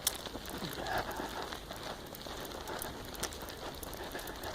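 Sneakers crunching through snow and slush on a snow-covered street, an uneven crackling with many small irregular ticks.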